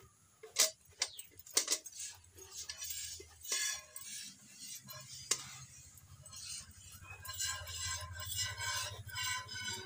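Milk squirting from a cow's teats into a steel pail during hand milking, a rhythmic run of hissing squirts, with a few sharp metallic clinks of the pail in the first couple of seconds.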